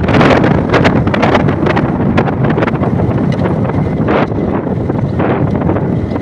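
Loud wind buffeting the microphone of a camera riding on a moving motorcycle, gusting without a break, with the bike's running noise underneath.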